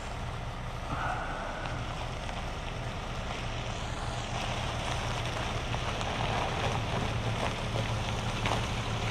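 Diesel engine of a medium-duty tow truck driving slowly up. It makes a steady low hum that grows gradually louder as the truck approaches.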